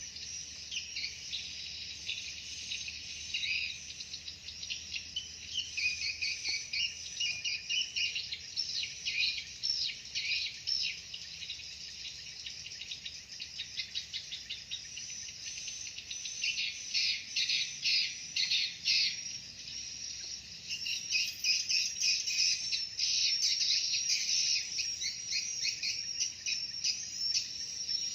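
Swiftlets twittering: dense, rapid high chirps and buzzy trills in overlapping bursts, growing louder in the second half.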